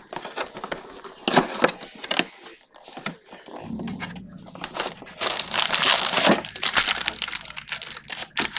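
Plastic shrink wrap crinkling and tearing as it is stripped off a Panini Prizm baseball card box, with sharp crackles over the first few seconds. Later the card packs rustle and slide as they are pulled out of the box.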